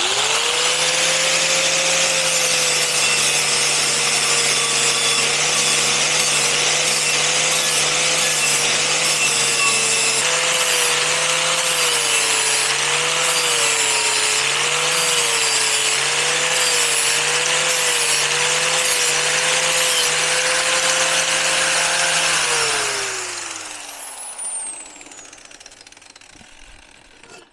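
Angle grinder with a flap disc running, its motor whine dipping and wavering in pitch as the disc is pressed onto the cut edges of a metal plate to dress them smooth. Near the end it is switched off and winds down with falling pitch.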